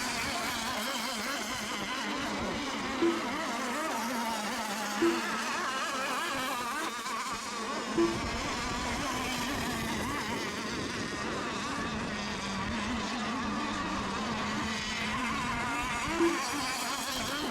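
Several radio-controlled racing boats' small two-stroke engines buzzing in a high-pitched, wavering drone as they race the course. Four short beeps stand out above the drone, spread through.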